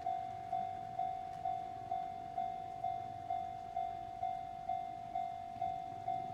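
Railway level-crossing warning bell ringing: one bright tone struck evenly a little over twice a second, each strike fading before the next. This is the signal that the crossing is closed for an approaching train.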